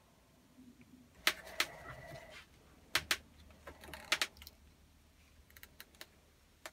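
Metal parts of a bolt cutter clinking and knocking together as its jaws and cast arms are handled in a vise: a few sharp clinks in pairs, the first ones ringing briefly, then some light ticks near the end.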